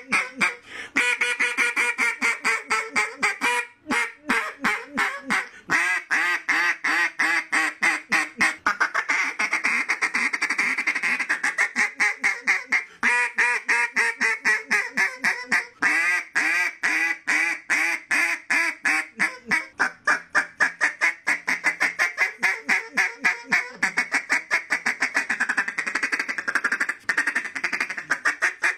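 Refuge Calls Acorn Shaker acrylic duck call blown in quick runs of quacking notes, several a second, with brief pauses between sequences.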